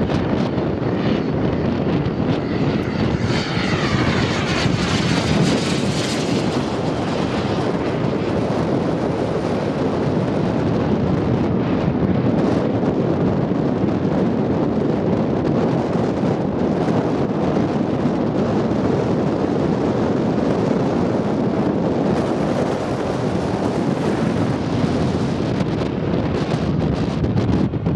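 Radio-controlled Skymaster A-10 model jet flying, its engines making a steady rushing noise, with a sweep in pitch about three to six seconds in as it passes close by.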